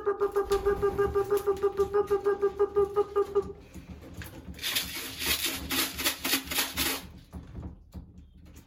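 Pigeon recall signal: a whistle-like call tone that pulses about eight times a second for about three and a half seconds, then a couple of seconds of rapid rattling shakes, used to call loft pigeons in through the trap.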